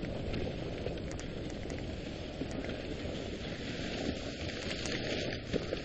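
Dog sled running over a snowy trail behind its team: a steady hiss of the runners on snow, with scattered faint clicks.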